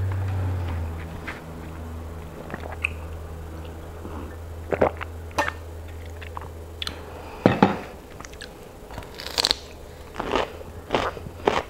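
Close-up crunching bites and chewing of raw cucumber, with scattered crisp crunches through the middle and a denser run of crunches in the last few seconds.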